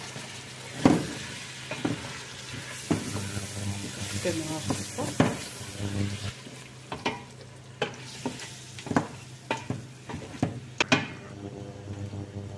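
Wooden spoon stirring chicken, onions, tomato and herbs frying in oil in a stainless steel pot: a steady sizzle with irregular knocks and scrapes of the spoon against the pot, the loudest knock about a second in.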